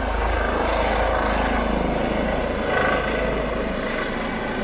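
Helicopter lifting off and climbing, a loud steady beat of rotor and turbine noise. The low rotor beat eases a little near the end as it rises away.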